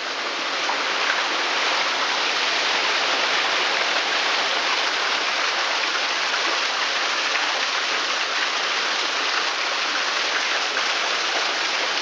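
Steady rush of running water from a stream, an even hiss with no breaks or swells.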